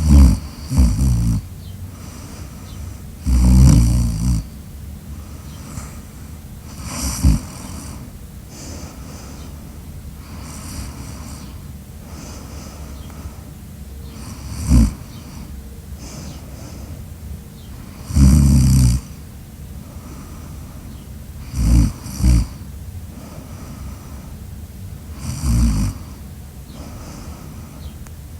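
A sleeper snoring loudly: short snores come at irregular gaps of a few seconds, some in quick pairs, with a steady breathy background between them.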